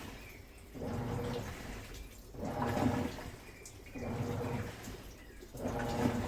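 Midea Wave-Agitator top-loading washing machine agitating its load: water sloshes in regular surges roughly every second and a half to two seconds, each carrying the motor's hum as the agitator drives back and forth.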